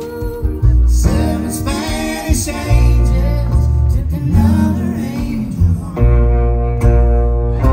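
Live country band playing a slow ballad through a PA: a woman singing over electric guitar, upright bass and mandolin, with strong sustained bass notes.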